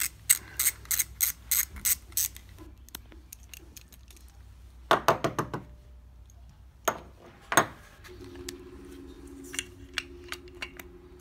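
Hand ratchet clicking in quick runs as screws are backed out of a septic air pump's diaphragm housing, followed by a few knocks of parts being handled. A steady low hum begins about eight seconds in.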